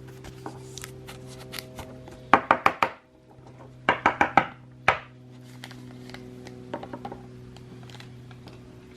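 Two quick runs of about five sharp taps each, a little over a second apart, then a single tap, with faint handling clicks in between over a steady low hum.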